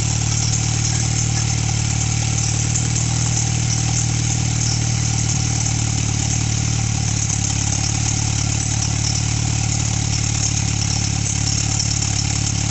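1987 Chrysler Conquest's turbocharged 2.6-litre four-cylinder idling steadily with no muffler or exhaust pipe fitted, running on a newly installed fuel pump.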